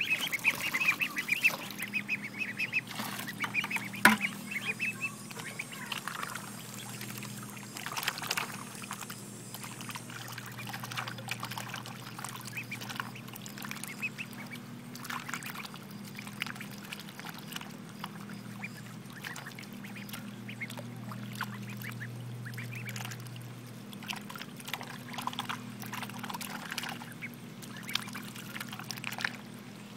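Several white domestic ducks dabbling in a bowl of water to eat their chow: rapid bill clicks, slurps and small splashes throughout, with quick chattering calls in the first few seconds.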